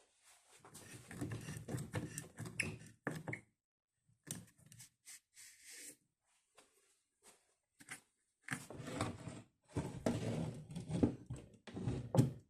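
Intermittent handling noises from hand work: irregular clicks, taps and scraping in several short bursts separated by quiet pauses.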